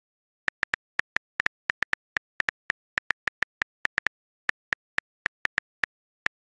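iPhone on-screen keyboard key clicks as a message is typed: a quick, irregular run of short, sharp ticks, about five a second, starting about half a second in.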